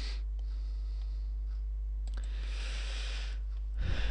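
Steady low electrical hum and hiss on a desk microphone, with a few faint computer mouse clicks and a brief soft rush of noise a little past halfway.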